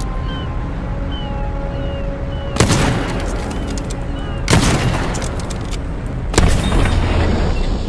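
Three loud gunshots, evenly spaced about two seconds apart, each followed by a long echoing tail, over background music.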